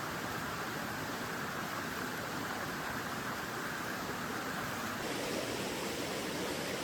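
Mountain stream rushing steadily. About five seconds in, the rush shifts to a lower, fuller tone.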